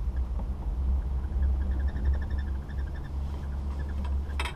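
Wind buffeting the microphone on a moving chairlift chair: a steady, fluctuating low rumble. A faint rapid chirping rises over it midway, and a single short sharp click comes near the end.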